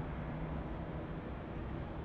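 Twin jet engines of a landing Icelandair Boeing 767, a steady rushing noise with a low hum underneath as the airliner flares and its main wheels come down onto the runway.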